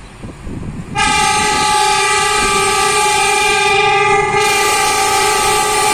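Diesel locomotive's air horn sounding one long, steady blast from the approaching train, starting about a second in.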